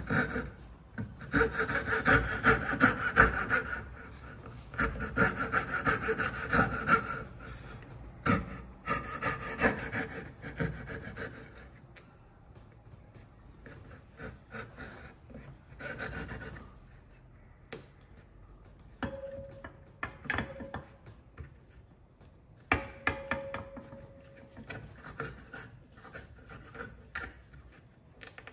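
Coping saw cutting through timber to remove the waste from a dovetail socket. It makes rapid, steady strokes for about the first twelve seconds, then fainter, stop-start strokes with a couple of brief squeaks.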